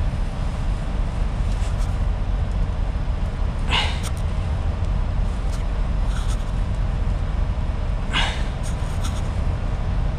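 Steady low rumble with brief rustling swishes of a gloved hand moving against parts around the truck's air intake, about four and eight seconds in.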